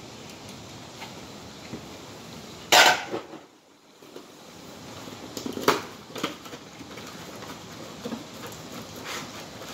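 Hard objects being handled: one loud clatter about three seconds in, then a few lighter clicks and knocks.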